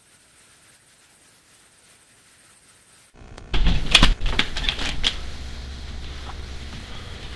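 A faint hiss with a thin high whine, then an abrupt cut about three seconds in to a close, jostling clatter: a quick run of sharp knocks and clicks, as from a handheld camera being bumped and carried, over a steady low rumble.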